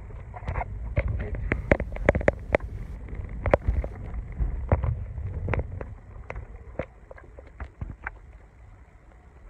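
Car interior: low rumble of the car running, overlaid by many sharp clicks and knocks. The rumble and the knocking ease about six seconds in, leaving a quieter engine sound.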